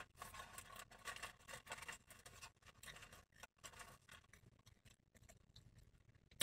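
Faint, irregular chewing of a mouthful of french fries, with a single brief click near the end.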